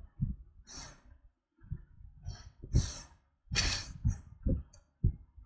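Breathing close to the microphone: three audible breaths, with a few soft low thumps in between.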